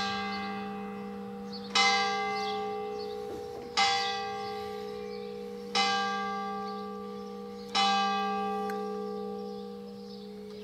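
Church bell striking five times, about two seconds apart, each stroke ringing on and fading before the next.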